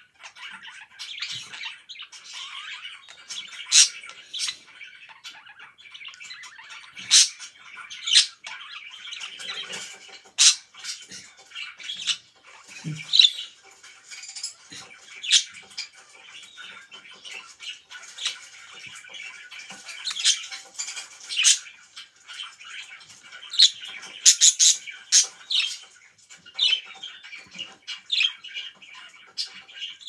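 Budgerigar chattering and warbling without pause, broken every few seconds by short, loud, sharp chirps, with a burst of several in quick succession near the end.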